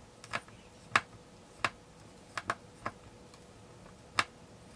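Irregular sharp clicks and taps, about seven in all, from a small Phillips screwdriver working at the screws of a MacBook Pro's bottom case.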